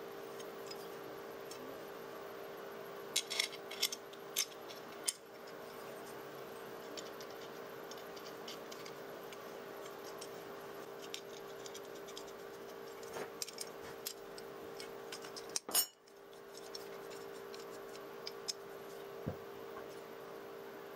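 Steel parts of a homemade walnut cracker, a bolt and a square steel tube, clinking and tapping as they are handled and fitted together, over a steady hum. The clinks come in a cluster a few seconds in and again later, with one louder knock about three quarters through.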